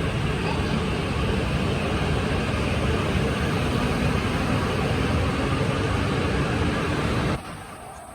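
Steady rumbling noise of a train running, cutting off abruptly about seven seconds in.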